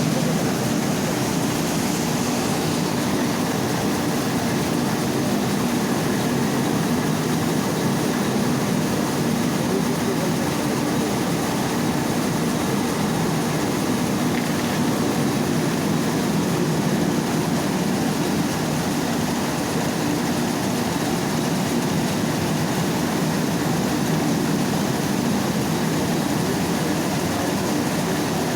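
Mini rice milling machine running steadily: a constant, unbroken mechanical noise over a low hum.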